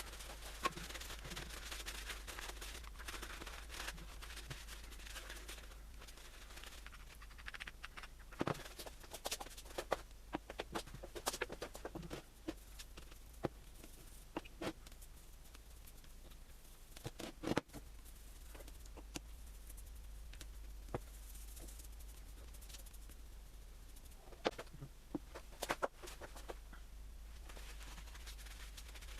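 Hand work on small metal parts: irregular clicks and taps of parts being handled, with soft rubbing in the first few seconds, over a steady low hum.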